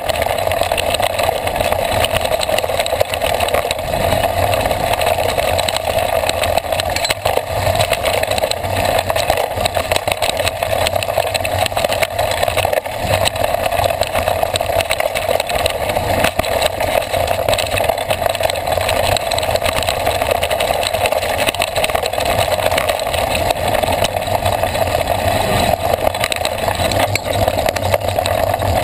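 Mountain bike ridden fast down a dirt trail, heard through a handlebar-mounted GoPro: a steady rushing of wind and tyre noise with many small knocks and rattles from the bars over the rough ground.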